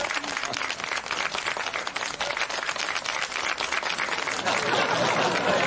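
Audience applauding steadily, with excited voices starting to rise over the clapping near the end.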